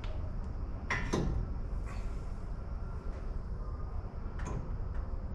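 A few clunks and scrapes of metal suspension parts being handled, the loudest about a second in: a 2011 Ram 3500's steering knuckle being worked back onto its new ball joints.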